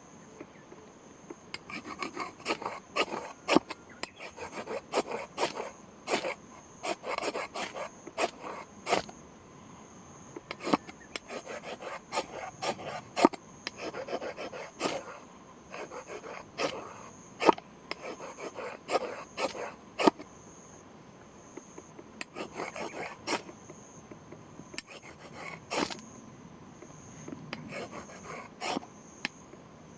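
Irregular rasping scrapes by hand, with sharp clicks among them, in runs broken by short pauses, over a steady high-pitched insect drone.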